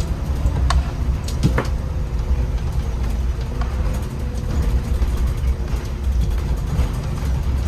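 MAN Lion's City articulated city bus driving: a steady low rumble of engine and road noise, with a few short rattles, the clearest about a second and a half in.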